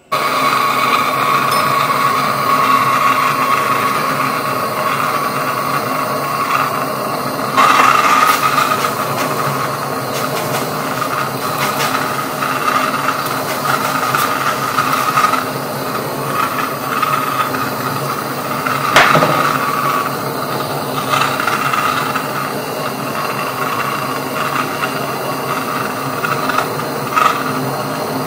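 Handheld gas blowtorch burning with a steady hiss as its flame heats a silver spoon, with a sharp click about 19 seconds in.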